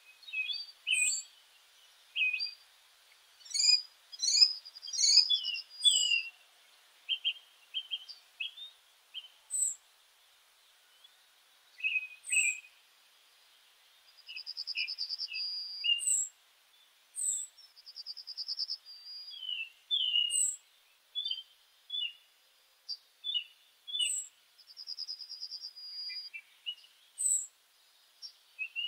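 Birds chirping and calling: short high chirps and quick downward whistles, with several fast trills, in irregular bursts with short pauses between.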